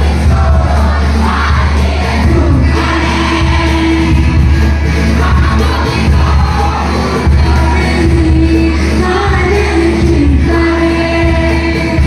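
A woman singing live into a microphone, backed by a band with keyboard and guitars and played loud through a PA system with heavy bass. She holds several long notes, the longest near the end.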